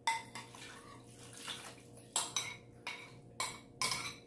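Spoon clinking and scraping against a small bowl as the last of the sauce is scraped out into the pan: a string of short, sharp clinks at irregular intervals, with a pause of about a second and a half after the first two.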